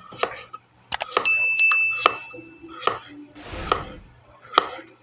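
A kitchen knife cutting on a wooden chopping board, with sharp knocks of the blade against the board about once every second. About a second in, a steady high chime rings for about a second and a half.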